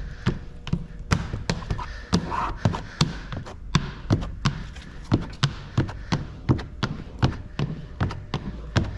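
Hand squeegee working wet tint film against a car's side window glass, pressing out the slip solution in quick, even strokes: short knocks about three times a second.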